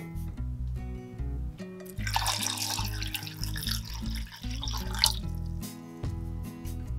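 Water poured into a stainless steel saucepan of peeled cherry tomatoes, splashing for about three seconds and stopping suddenly, over background music.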